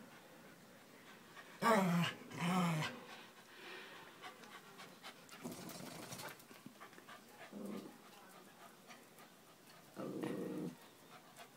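Dogs at play: two short, loud vocalizations in quick succession about two seconds in, then softer panting, and a short low grumble near the end.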